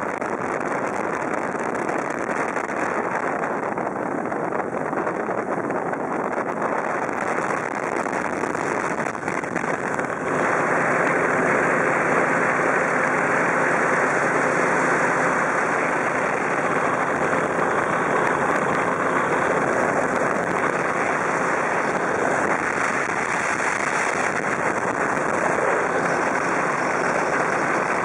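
Steady rushing noise of a powered hang-glider trike in flight, with the engine and airflow on the microphone. It gets a little louder about ten seconds in.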